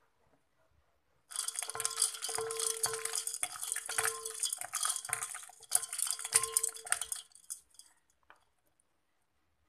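Ice cubes clattering and water sloshing in a stainless steel bowl as it is stirred with a wooden spatula, with a steady ringing note underneath. It starts about a second in and stops after about six seconds.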